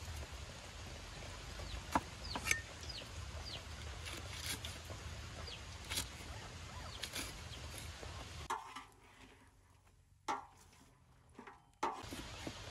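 A cleaver chopping red chilies on a thick wooden chopping block: irregular sharp knocks, about one every second or so, over a steady low hum. A few short falling calls sound behind it a few seconds in, and the sound drops much quieter for a few seconds near the end.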